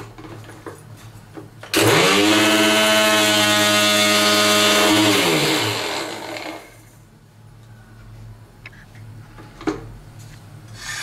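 Electric mixer-grinder running at full speed with its small steel dry-grinding jar, grinding roasted whole spices into masala powder. It starts suddenly and runs steadily for about three and a half seconds, then is switched off and its whine falls as the motor spins down. A short knock follows near the end as the jar is handled.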